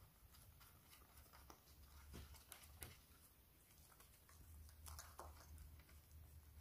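Near silence with faint scattered clicks and taps of hands fitting a high-pressure injector pipe to the injectors on a diesel V6 engine, over a low steady hum.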